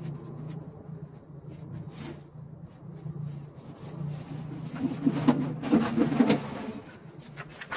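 Footsteps crunching on packed snow, loudest in a cluster about five to six seconds in, over a steady low hum.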